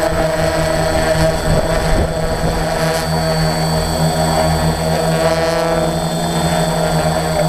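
Helicopter engine and rotor running steadily, a continuous even drone with a high turbine whine over it.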